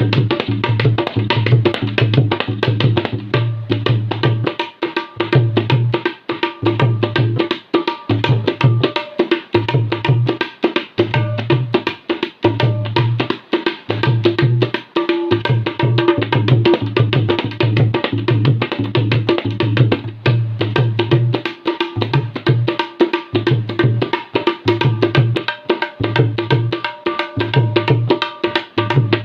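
Tabla played in a Punjabi dhol (bhangra) style: fast, dense strokes on the small drum over deep, booming strokes on the bass drum that pulse in a repeating pattern, imitating the dhol's beat.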